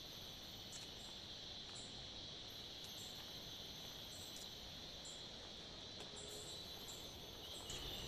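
Forest insects trilling in a faint, steady, high-pitched drone.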